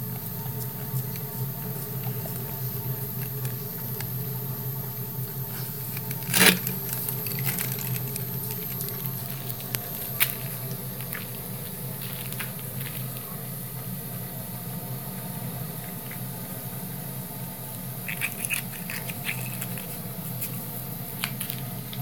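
Dog licking and lapping spilled milk off a concrete floor: a run of small wet clicks and smacks, with one sharp knock about six seconds in.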